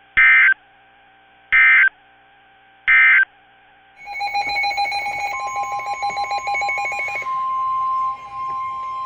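NOAA Weather Radio SAME data tones: three short identical buzzing bursts a little over a second apart, the end-of-message code closing a warning. About four seconds in, a rapid pulsing beep starts, and soon after the steady Weather Radio alert tone comes on and holds, signalling the start of the next warning.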